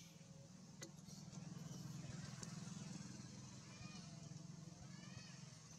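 Faint outdoor ambience: a steady low hum, a single click about a second in, and a few faint chirps near the end.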